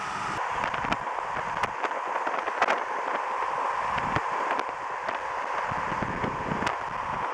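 Road noise inside a moving car: a steady rushing hum, with scattered sharp ticks and clicks now and then.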